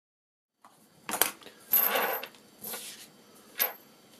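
Steel bolts, nuts and washers clinking on a wooden workbench as they are handled: a few sharp metallic clinks and a short rattle, some ringing briefly.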